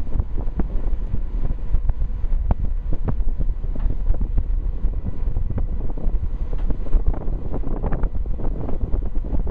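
Strong wind buffeting the microphone on the open deck of a fast ferry under way: a gusty low rumble that rises and falls, with a faint steady hum underneath.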